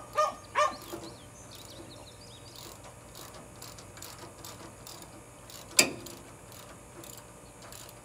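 Ratchet wrench clicking in quick, even strokes as a bolt is cranked in to mount a round baler roller, with one sharp knock about six seconds in.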